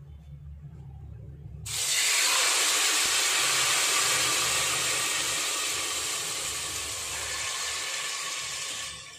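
Cooked chicken masala hitting hot oil in a steel pot and sizzling. The sizzle starts suddenly nearly two seconds in, eases off slowly, and stops just before the end.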